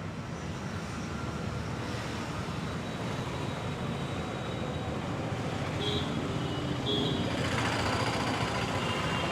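Steady hum of street traffic, growing slightly louder, with two short high beeps about six and seven seconds in.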